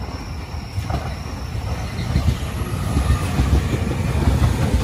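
A JR 209-series electric commuter train moving in along the platform, its wheels rumbling over the rails. The sound grows steadily louder as the cars draw level.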